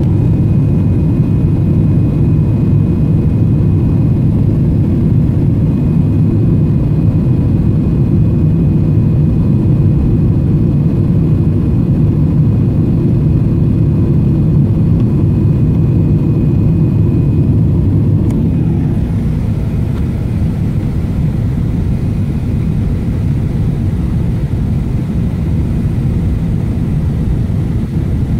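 Steady low rumble of jet engines and airflow heard inside a Boeing 777's cabin on final approach, with a faint high whine over it. The noise drops a little about two-thirds of the way through, as the whine fades.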